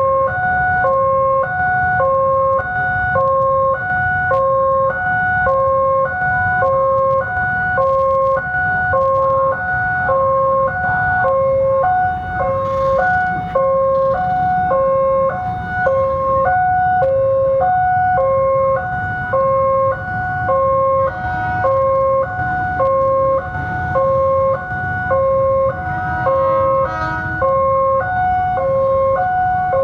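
Electronic railway level-crossing warning alarm sounding without a break, alternating a high and a low tone about once a second each, over a low rumble.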